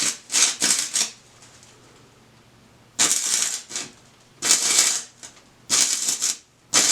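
Stick welding arc crackling on thin small-diameter pipe, in short bursts of under a second with pauses between. The arc is struck and broken about five times, with a longer pause of about two seconds after the first second.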